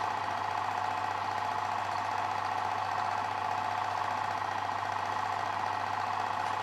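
Film projector running: a steady, fast mechanical clatter over a low hum.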